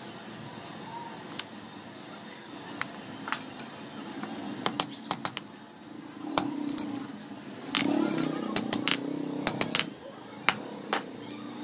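Steel pieces and hand tools clinking and tapping as they are handled: scattered sharp metallic clicks, more frequent in the second half.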